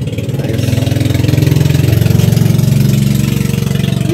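A small engine running steadily, growing louder about a second in.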